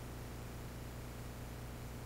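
Steady low electrical hum with an even hiss underneath, with no speech: mains hum and noise in the church's recording chain.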